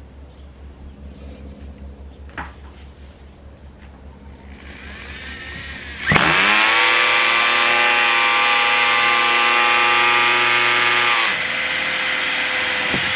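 Corded electric drill driving a 1.5-inch hole saw into a black plastic container. The motor spins up about five seconds in, then runs at full speed with a steady whine as the saw cuts. It eases a little near the end while it keeps turning.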